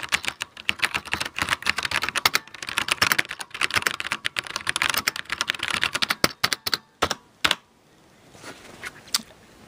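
Fast typing on a Videonics-branded Cherry G80-series mechanical keyboard: a rapid stream of clicky keystrokes, which thins to a couple of separate key presses about seven seconds in and then stops.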